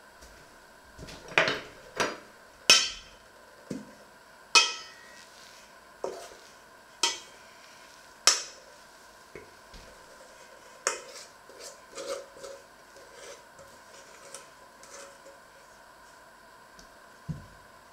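Stainless steel bowl clanking and ringing against a cast-iron pot and utensil as dough is scraped out of it. About nine sharp metallic clanks come in the first eleven seconds, then softer taps and scrapes, and a dull thump near the end.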